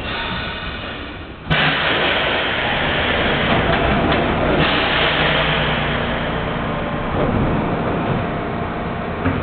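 Subway station's moving gap-filler platform extending out to a stopped train's doors. A loud rush of noise starts suddenly about a second and a half in, over steady mechanical running, and eases off slowly.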